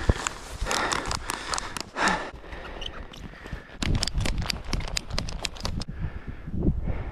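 Deep powder snow crunching and scraping as a snowboarder pushes up out of it by hand, with heavy breaths early on. About four seconds in comes a quick run of sharp crunching clicks. Near the end the snowboard starts sliding and a low rumble sets in.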